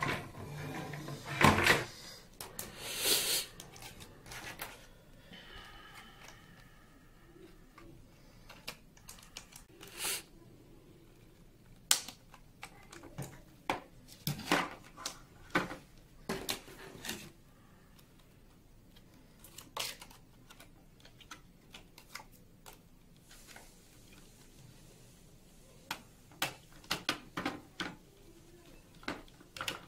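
Hard plastic parts of a fibre-optic splitter box being handled: irregular clicks, taps and knocks as the cover plate and tray are fitted and set down on a table, with the loudest knocks in the first few seconds.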